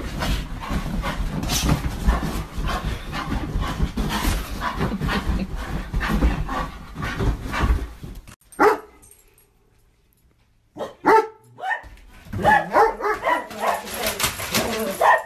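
A bull terrier scrabbling about on a bed, its bedding rustling, then one sharp bark a little past the middle. After a short quiet, a black-and-tan dog barks and yelps in a quick run of short calls.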